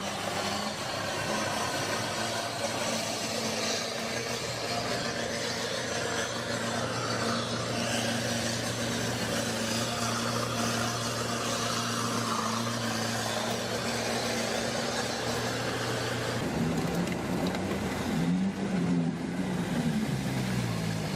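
Sherp amphibious off-road vehicle's diesel engine running steadily, then revving up and down repeatedly from about 16 seconds in.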